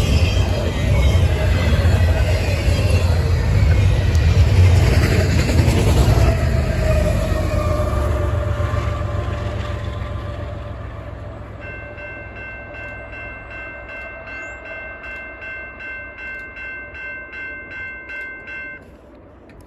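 Double-stack intermodal freight cars rolling past with a loud rumble of wheels on rail, fading as the train pulls away. About 12 seconds in, the grade-crossing bell starts ringing at about two strikes a second as the gates begin to rise after the train has cleared, and it stops suddenly near the end.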